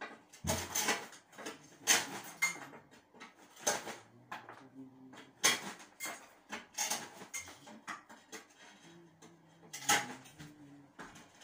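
Irregular clinks, knocks and scrapes of tools and building materials being handled at floor level during bathroom renovation work.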